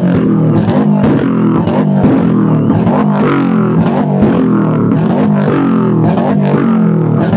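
Subaru Impreza WRX STi's turbocharged flat-four, breathing through a Blitz Nur Spec R exhaust, held against a Bee*R launch-control rev limiter: a loud, stuttering drone broken again and again by sharp pops and bangs. These are the limiter's ignition cuts, which set off exhaust flames.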